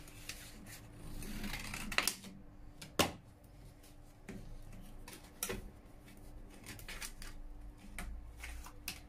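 Cardboard packaging of a Bialetti moka pot rustling and scraping as the pot is pulled out of its box by hand, with scattered sharp clicks and knocks, the loudest about three seconds in.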